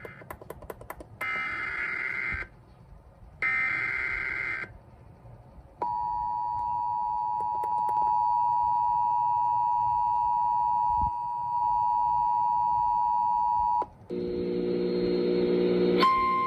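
Emergency Alert System broadcast tones. The tail of one buzzy digital data burst is followed by two more, each about a second long. Then comes the steady two-tone attention signal for about eight seconds, announcing the next alert. Near the end a different chord of tones sounds for about two seconds, and a single steady tone begins.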